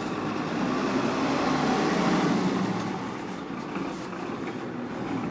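A route minibus drives up close, its engine running under tyre and road noise. The sound swells to a peak about two seconds in, then eases a little.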